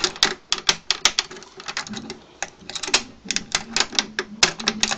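Rapid, irregular metallic clicks and rattles of a lever try-out key being turned and jiggled in a 3-lever lock, the key working against the levers. The lock does not open.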